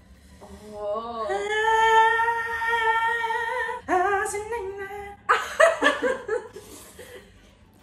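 A woman's long, high, wavering wail held for about three seconds, a reaction to the burn of the spicy noodles, then a short 'oh' and a burst of laughter.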